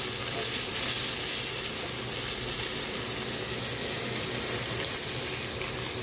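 Smoked bacon lardons sizzling steadily as they fry dry in a frying pan with no added fat, while being turned over with a wooden spatula.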